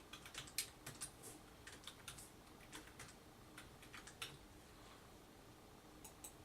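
Faint typing on a computer keyboard: quick irregular key clicks, a flurry over the first three seconds, then a few scattered keystrokes, as login details are entered.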